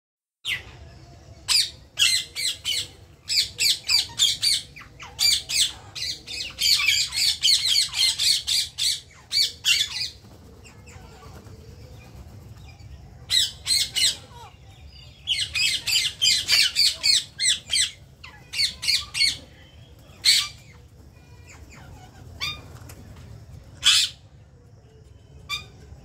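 Indian ringneck parakeets (rose-ringed parakeets) giving harsh, high squawks in fast runs of repeated calls, broken by short pauses. Over the last few seconds there are only a few single squawks.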